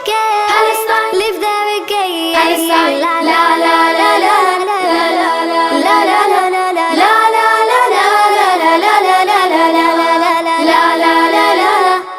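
A child singing a song with music, sung notes bending and held.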